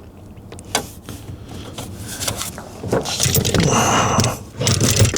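Scraping and clicking of hand-worked car parts and tools, with a sharp click about a second in and a longer stretch of rough scraping in the second half.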